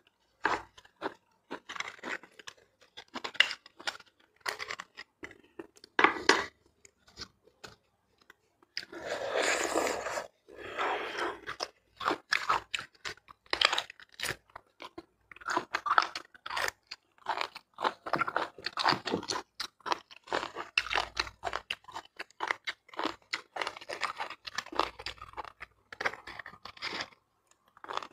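Close-miked eating of roasted beef bone marrow: chewing and lip smacking in many short, sharp clicks, with a longer unbroken stretch of sound about nine seconds in as the bone is held to the mouth.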